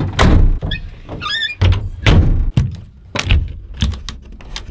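Several heavy thunks and knocks inside a truck's camper shell as gear and the shell's sliding side window are handled, with a brief wavering squeak about a second in.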